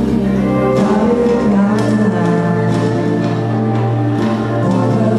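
Live band playing a jazzy soul song: held keyboard chords over a bass line, with a singer's voice.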